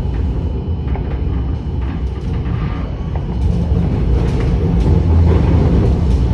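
Tram running noise heard from inside the car: a steady low rumble of wheels on rails with scattered light clicks and knocks, growing louder about halfway through.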